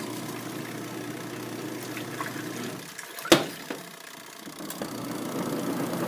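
Twin-tub washing machine's spin dryer motor running steadily, with no banging from the drum, a sign that the load is balanced. A single sharp click comes about three seconds in, and the hum dips briefly before it picks up again.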